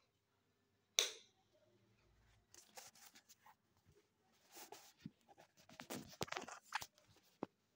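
A sharp click about a second in, then a run of soft rustles and small clicks: handling noise from a phone held in the hand while it films.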